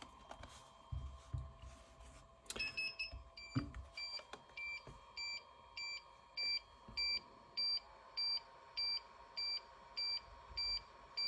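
Radio controller's throttle warning: a longer beep, then short high beeps repeating evenly, nearly two a second, because the throttle stick is left halfway up instead of at idle. It is a safety lock-out that keeps the drone from arming.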